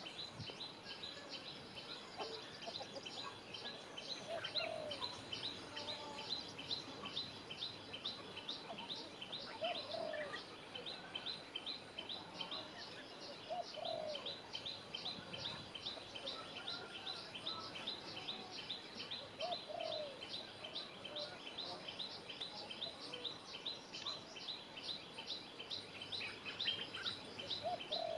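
Outdoor bird-call ambience: a high chirp repeated evenly about three times a second, with a lower, short call every four to six seconds.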